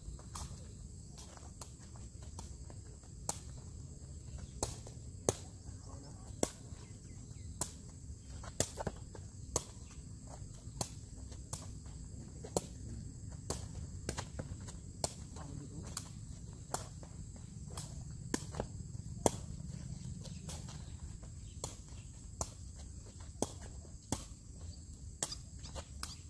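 Sepak takraw ball being kicked back and forth: a long string of sharp, irregular pops as feet and knees strike the woven ball, often less than a second apart. A steady high insect drone runs underneath.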